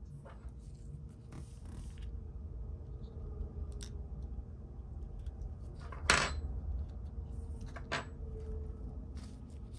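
Small metal tools and parts clicking, clinking and scraping while an Apple iPod Classic is taken apart, with a sharper clink that rings briefly about six seconds in and another about two seconds later.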